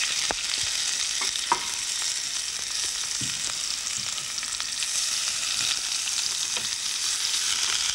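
Leeks and turnips sizzling steadily in butter and sugar over high heat, browning and starting to caramelise, with a few light clicks of a spoon against the pan in the first few seconds.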